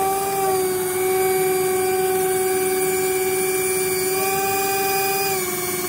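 Twin electric ducted fans of a Dynam Turbojet 550 RC Cessna Citation II jet running at low power as it taxis, a steady whine that dips slightly in pitch about five seconds in.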